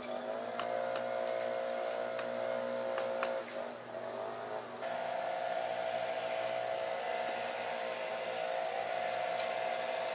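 Boat motor running with a steady hum that dips in pitch just after the start, breaks off for a moment about three and a half seconds in, then picks up again at a steady pitch.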